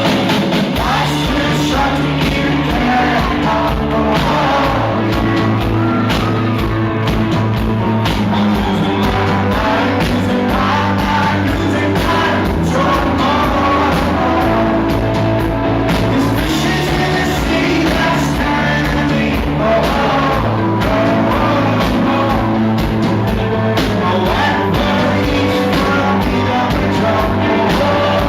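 A rock band playing live, with a lead vocal singing over the band.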